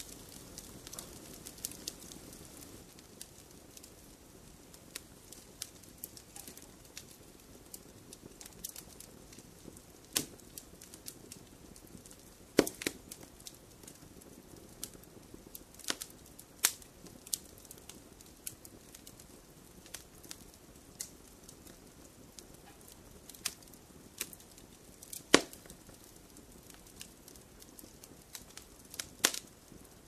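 Fire crackling in a fireplace: a low steady hiss with scattered sharp pops, a few of them much louder, the loudest about twelve and a half and twenty-five seconds in.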